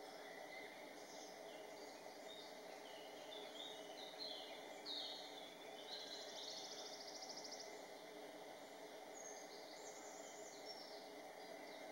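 Faint woodland ambience: scattered songbird chirps and whistles over a steady low background hiss, with a rapid bird trill about six seconds in.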